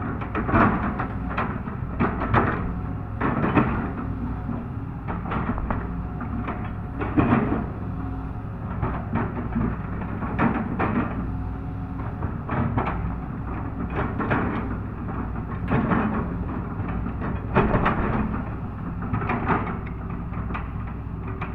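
Excavator's diesel engine running steadily under load, with repeated metallic clanks and knocks from the machine working, coming irregularly every second or so.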